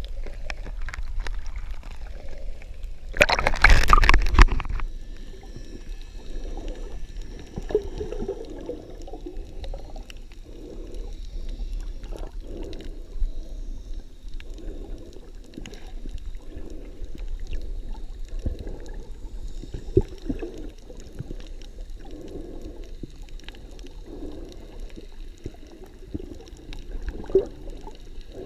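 Muffled underwater water noise picked up by a camera held below the surface while snorkeling: a low, uneven gurgling wash with soft pulses about once a second. A loud rushing burst of water noise comes about three seconds in and lasts about a second and a half.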